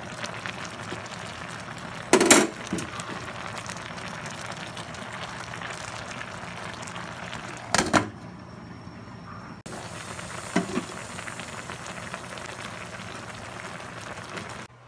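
Pot of sinigang, tilapia in tamarind broth, at a rolling boil with a steady bubbling hiss. A glass pot lid clanks against the pot twice, about two and eight seconds in, with a lighter knock a few seconds after the second.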